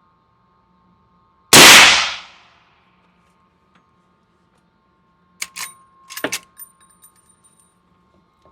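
A single suppressed shot from a Henry Model X .45-70 lever-action rifle about a second and a half in, ringing out over about a second. About four seconds later come a quick series of metallic clacks and clinks as the lever is worked to eject the spent case and chamber the next round.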